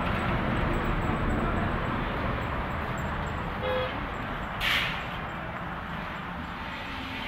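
Steady outdoor rumble with a short vehicle horn toot a little past the middle, followed about a second later by a brief hiss, the loudest sound.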